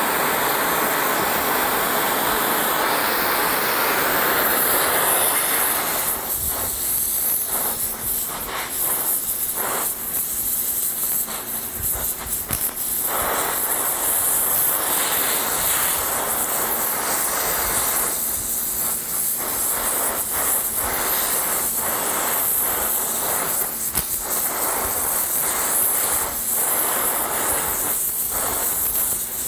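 Oxy-fuel torch flame hissing steadily as it heats a seized stud in a cast-iron engine block to free it. From about six seconds in, the hiss wavers unevenly in level.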